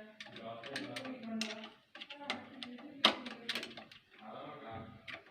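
Sharp metallic clicks and taps of tools and parts on a sewing machine during a shuttle adjustment, the loudest about three seconds in, with a low voice-like murmur in the first two seconds.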